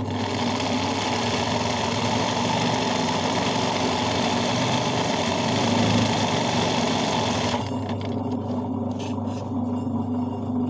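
Industrial sewing machine running fast and steady, stitching hand-guided (free-motion) embroidery through fabric in a hoop; it stops abruptly a little under eight seconds in.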